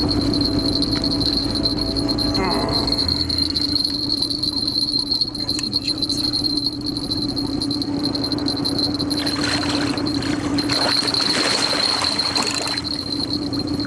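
Hooked wels catfish thrashing and splashing at the water surface in short noisy bursts from about 9 to 13 seconds in, over a steady low hum and a constant high tone.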